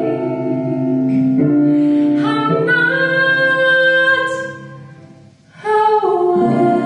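A woman singing into a handheld microphone with music, holding long notes. She climbs to a long high note, then fades to a short pause about five seconds in before the next phrase begins.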